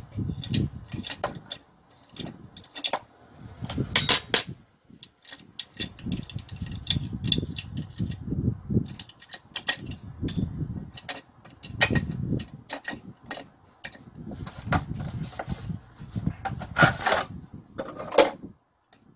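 Irregular metallic clicks, taps and handling knocks of a hand tool working on a two-stroke chainsaw as its muffler is unbolted and taken off.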